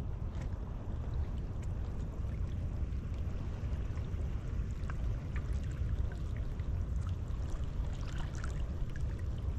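Wind rumbling on the microphone over water lapping and trickling among shore rocks, with a few light ticks and splashes around eight seconds in.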